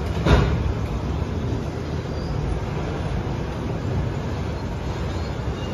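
Freight train of flat wagons loaded with lorries rolling along the track, a steady low rumble of wheels on rail, with one sharp knock about a third of a second in.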